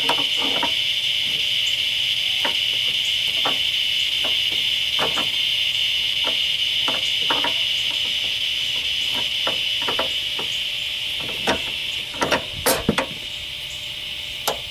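A wrench clicking and knocking irregularly on the bolts of the Firebird's pop-up headlight motor bracket as they are worked loose, with a quick cluster of louder knocks about twelve seconds in. A steady high-pitched background drone, like insects, runs underneath.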